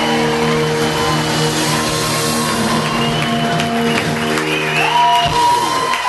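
Live rock band of electric guitars, bass and drum kit holding a long ringing final chord under drum and cymbal hits, with the crowd beginning to cheer as the song ends.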